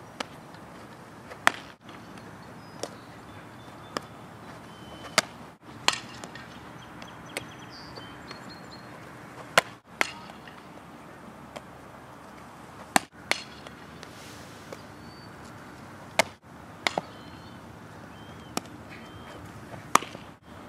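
Softball fielding practice: repeated sharp knocks of a softball coming off a bat and popping into a leather fielder's glove, every one to four seconds.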